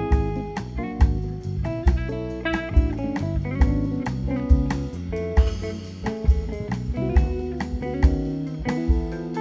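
Live instrumental band music: plucked guitar lines over bass and a drum kit keeping a steady beat.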